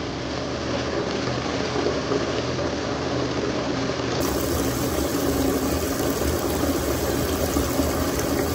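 A bath filling: water running steadily from a metal shower hose into a tub heaped with bubble-bath foam.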